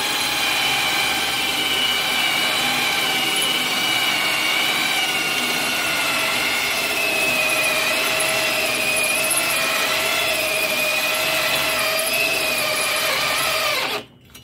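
Electric drill spinning a tapered die grinder bit at high speed, grinding a pilot hole wider in hard bed rail steel: a steady whine that sags slightly in pitch as it loads up. It stops abruptly near the end.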